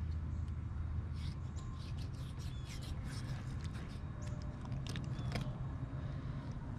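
Knife cutting and scraping through alligator hide while a leg is skinned: irregular short slicing and scraping sounds over a steady low rumble.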